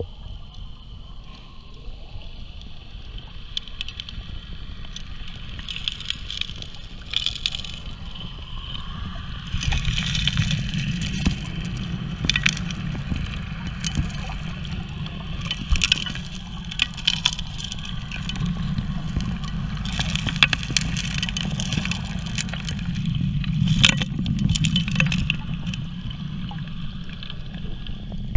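Underwater sound of a Keene 4-inch suction dredge at work: a steady low drone from the running dredge and rushing water, with frequent sharp clicks and knocks of gravel and stones being sucked up through the nozzle. The drone grows louder about ten seconds in.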